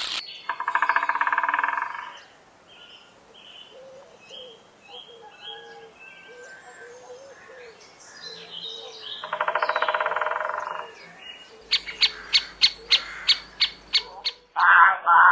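Two loud, buzzing, trilled animal calls about eight seconds apart, with faint bird chirps between them, then a quick run of sharp clicks near the end.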